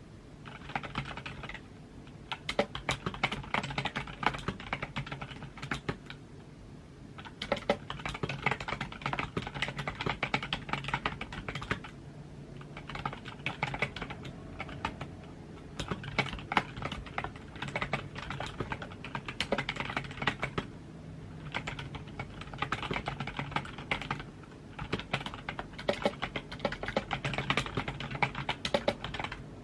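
Typing on a computer keyboard: rapid runs of key clicks lasting a few seconds each, broken by short pauses.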